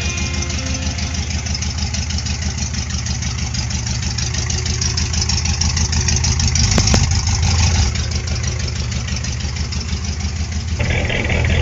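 Engine idling steadily with an even pulsing beat, briefly a little louder with a few clicks about two-thirds of the way in.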